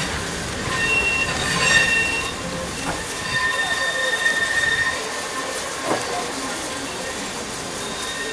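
Class 101 diesel multiple unit rolling slowly round a curve over pointwork, its wheels squealing in high steady tones about a second in and again from about three to five seconds in, over the low running of its diesel engines. A couple of short knocks come from the wheels crossing rail joints and points.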